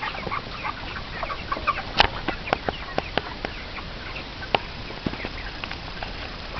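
A flock of chickens clucking and chirping, many short overlapping calls, with sharp taps and clicks scattered among them; the loudest tap comes about two seconds in.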